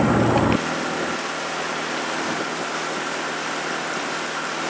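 Small river boat's motor running steadily under a steady rushing hiss. The engine hum is strong for the first half second, then drops abruptly to a fainter hum.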